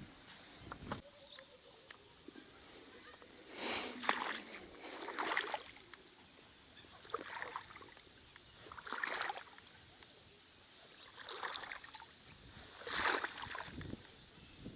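Floodwater splashing and sloshing in regular strokes, one surge about every one and a half to two seconds.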